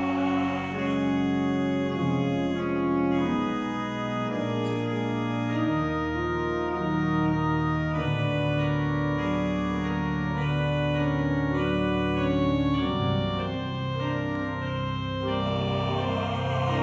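Allen church organ, played four-hands, in a solo interlude: slow sustained chords that change every second or so. The men's chorus is heard briefly at the very start and comes back in near the end.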